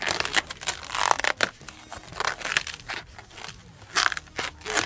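A long latex modelling balloon being twisted and handled right at the microphone: rubber rubbing and squeaking against the hands in a string of irregular bursts.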